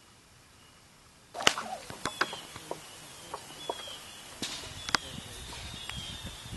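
Homemade wooden catapult firing: a sharp crack about a second and a half in, followed by scattered knocks and a rustling noise. Faint chirps throughout.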